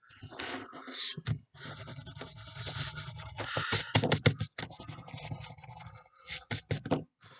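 Pencil scratching on paper as lines are drawn: longer scratchy strokes, then a quick series of short strokes about four seconds in and again near the end.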